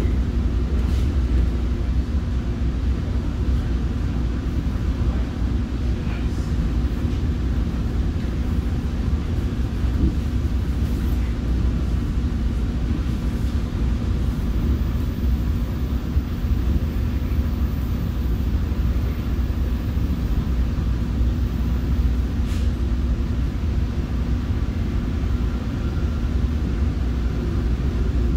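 Commuter train heard from inside a passenger coach: a steady low rumble with a faint constant hum and an occasional light tick.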